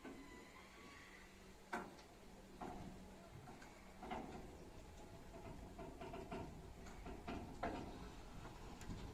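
Garen electric sliding-gate motor faintly humming as it drives the steel gate along its gear rack, with a few light clicks and knocks from the rack and gate.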